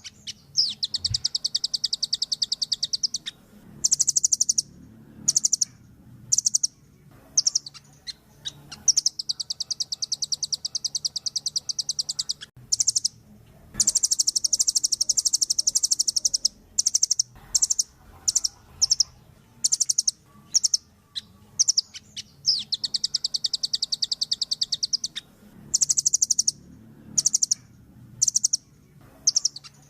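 Velvet-fronted nuthatch singing: fast, sharp, high-pitched trills of rapidly repeated notes, in long runs of a few seconds broken by short bursts and brief pauses.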